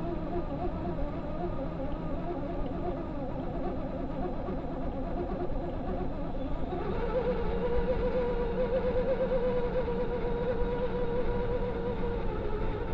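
Electric motor and geartrain of an RC4WD Gelande II Land Cruiser BJ40 scale RC crawler whining as it crawls up a sand mound, the pitch wavering with throttle and load. About seven seconds in the whine steps up and grows louder and steadier.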